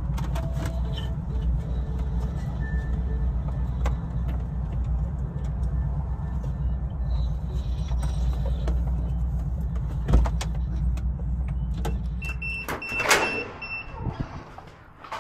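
Inside a moving car: a steady low rumble of engine and road noise. About twelve seconds in the rumble stops, and a short run of beeps sounds with some rustling.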